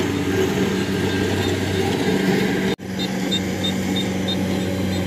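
Kubota DC-70 Plus combine harvester's diesel engine running steadily under load while cutting rice in a waterlogged paddy. The sound drops out for an instant about halfway, then the drone carries on with a string of short high peeps over it.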